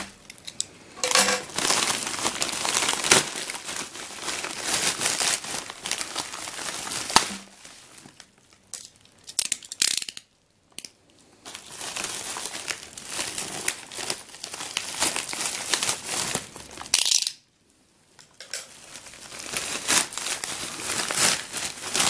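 Plastic mailing bag and bubble-wrap packaging crinkling and tearing as a parcel is opened by hand, in irregular rustling stretches broken by two brief pauses.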